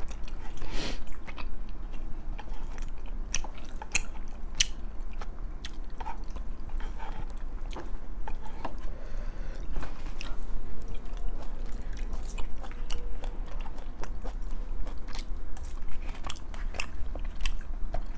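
Close-miked chewing of tteokbokki rice cakes and ramen noodles, with many scattered sharp clicks and smacks, over a steady low hum.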